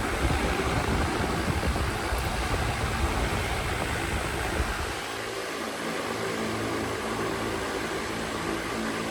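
Unitedstar 24-inch high-speed ceiling fan running at its top speed with a steady whoosh of moving air. A heavy low rumble drops away about five seconds in, leaving a steady motor hum under the air noise.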